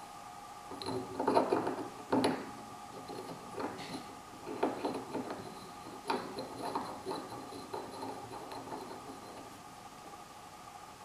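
A stainless steel rod being twisted by hand into a perforated stainless steel plate: irregular metallic clicks and scrapes, densest in the first half and thinning out near the end.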